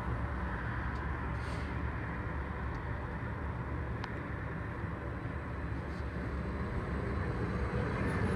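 Steady low rumble of city road traffic. It grows louder over the last second or so as a C-Train light rail train approaches the platform.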